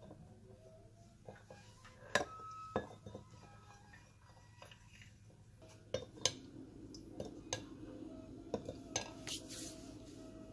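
A metal spoon stirring an oily spice dressing in a small ceramic bowl, clinking and scraping against the bowl's sides at irregular moments. The sharpest clinks come about two seconds in and around six seconds, one leaving a brief ring.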